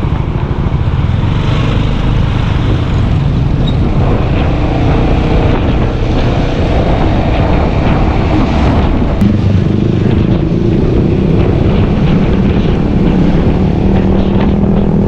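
Yamaha XMAX scooter being ridden, its engine drone mixed with heavy wind rumble on the rider's microphone, holding a steady note through the second half.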